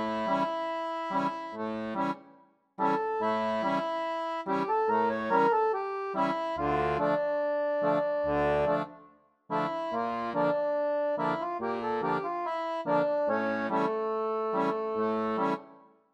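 Instrumental background music in short phrases. It breaks off twice into brief silences, about two and a half and nine and a half seconds in.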